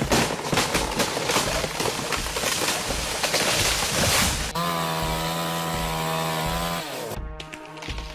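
Chainsaw working: a dense rasping, crackling noise for the first half, then a steady high engine buzz for about two seconds that cuts off. Background music with a steady beat runs underneath.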